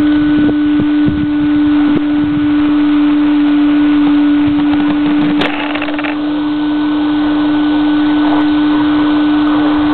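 Onboard sound of a Team Associated B44.1 4WD brushless electric RC buggy running a lap: a constant droning tone over rushing track noise, with knocks from bumps and one sharp, louder hit about five and a half seconds in.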